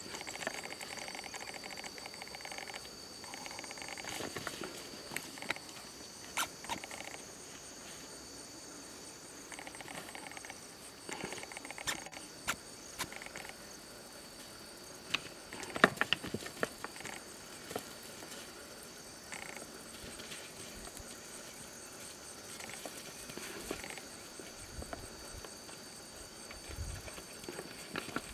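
Two male Jackson's hartebeest sparring, their horns clashing in scattered sharp knocks and clacks, the loudest cluster about sixteen seconds in. A steady high drone of crickets and other insects runs underneath.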